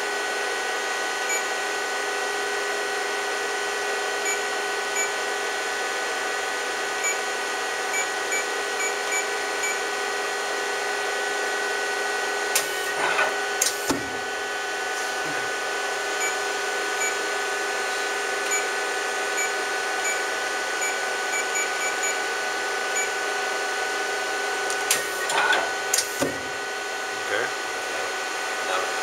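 KIA CNC turning center running under power, a steady whine of several fixed tones with faint ticking. Twice, about 13 seconds in and again about 25 seconds in, a short burst of sharp clunks and a brief whirr comes as the tool turret indexes to another position.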